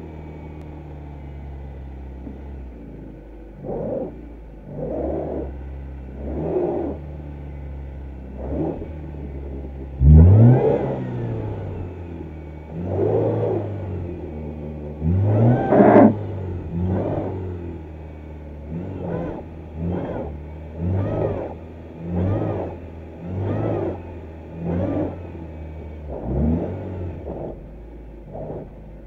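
VAZ-21099's inline-four engine idling, then revved again and again in short rising bursts, at first a few seconds apart and then about one a second, as the car tries to rock itself out of bog mud it is stuck in.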